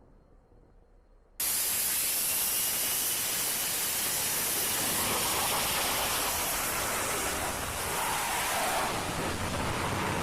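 F-35B jet engine running with a loud, steady roar heard at close range, cutting in suddenly about a second and a half in.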